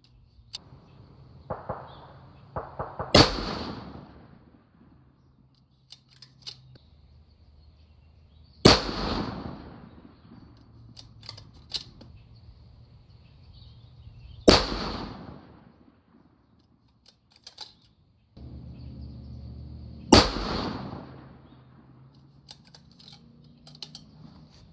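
Masterpiece Arms BA PMR Pro Rifle II bolt-action rifle in 6mm Creedmoor firing four shots about five and a half seconds apart, each report fading out over about a second. Lighter clicks come between the shots.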